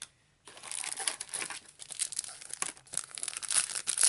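Foil trading-card booster packs being torn open and their wrappers crumpled: dense crinkling and crackling that starts about half a second in.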